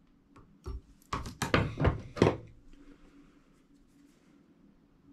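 A few light clicks, then a short run of knocks and rustles about a second or two in, as hands work and set down fly-tying tools at the vise.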